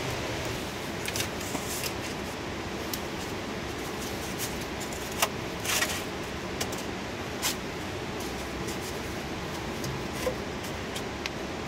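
Green bamboo poles knocking and scraping as they are shifted and laid side by side on sand against rock: scattered short sharp clicks and a brief rustle about six seconds in, over a steady rushing background.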